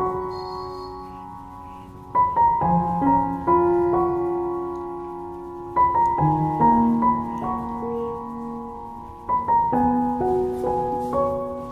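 Gentle background piano music: phrases of struck notes that fade away, with a new phrase starting about every three to four seconds.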